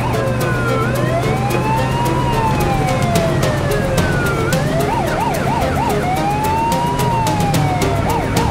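Emergency vehicle siren: a slow rising-and-falling wail that switches to a fast yelp about five seconds in, then back to the wail, then to the yelp again near the end.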